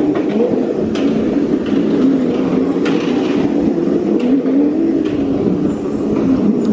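Car engine running under way, heard from inside the cabin, its pitch rising and falling gently as the throttle changes.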